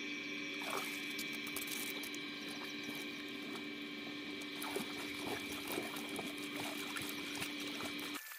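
Hands splashing and sloshing in shallow river water, a string of small irregular splashes as someone gropes for fish among the rocks. A steady background hum runs underneath and cuts off abruptly near the end.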